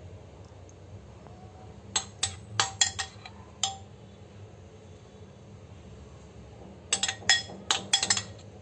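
A spoon clinking against a ceramic plate while spooning sauce: a quick run of about six light ringing clinks about two seconds in, then another run of about five near the end.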